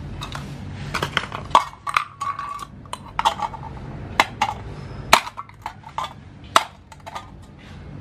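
Folding knife blade striking and piercing an aluminium drink can standing on brick paving: a series of sharp metallic clinks and knocks, the loudest a little after five seconds and again about six and a half seconds in.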